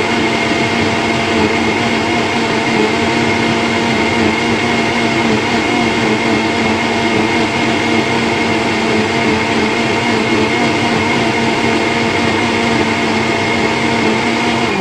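Countertop blender motor running steadily at full speed, blending chopped celery with water into juice: a loud, even whine with no let-up.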